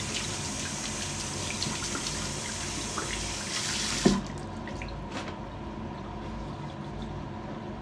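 Bathroom sink tap running water into the basin, shut off about four seconds in with a single knock; a few faint handling clicks follow.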